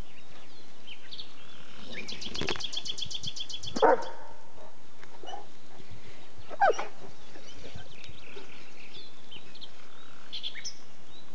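A young Dogo Argentino giving two short barks, about three seconds apart.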